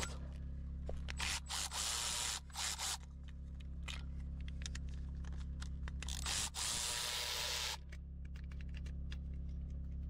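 Hands handling tools and parts: two stretches of rustling and scraping, about a second in and again past the middle, with scattered small clicks and knocks, over a steady low hum.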